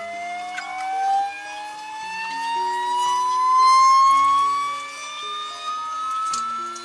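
QIDI Tech Plus 4 3D printer running its input-shaping resonance test: the motors shake the printhead and bed through a frequency sweep, giving a steady rising whine that climbs slowly in pitch.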